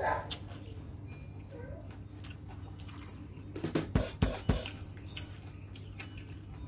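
Mouth chewing food, then about four seconds in a few sharp cracks as a grilled dried frog is pulled apart by hand.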